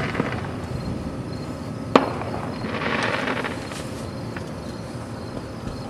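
Distant fireworks going off, with one sharp bang about two seconds in and a few fainter pops later.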